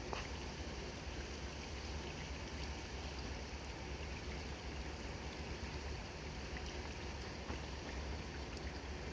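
Steady pouring rain, with a few faint drip clicks on top.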